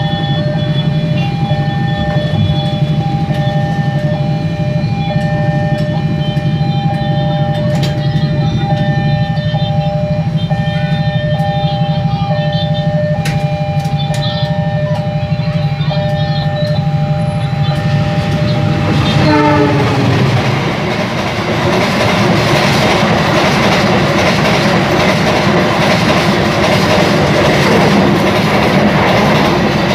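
Level crossing warning alarm sounding two steady tones with regular short breaks, over a low hum. About two-thirds through a train horn sounds, and a passenger train then passes close by with loud wheel-on-rail running noise.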